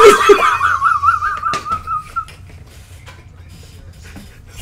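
A person's high-pitched squealing laugh, a thin wavering tone that pulses several times a second and fades out about two seconds in, followed by a few faint clicks.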